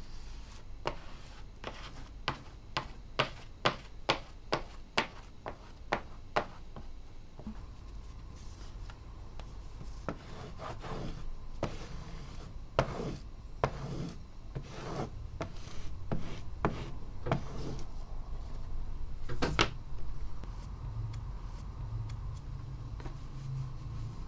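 Paper being handled, smoothed and creased by hand on a cutting mat: a quick run of sharp clicks at about two or three a second for the first several seconds, then slower crackling and rubbing of the sheet, with one louder crackle near the end.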